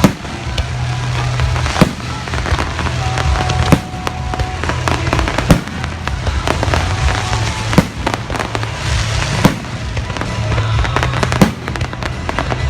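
Fireworks display: sharp bangs of shells bursting about every two seconds, over a continuous crackling of smaller bursts, with music playing along.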